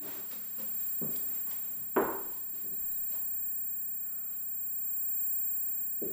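Footsteps: a faint step about a second in and a louder one at two seconds, then another right at the end, over a steady low electronic hum with a faint high steady tone.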